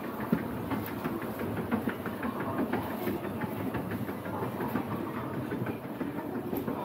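Escalator machinery running: a steady, rapid clicking rattle over a low hum.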